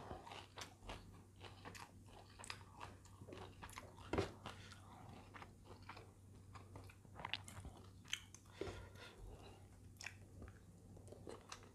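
Faint chewing and mouth sounds of a person eating rice and stir-fried greens by hand: scattered soft clicks and smacks, the sharpest about four seconds in, over a steady low hum.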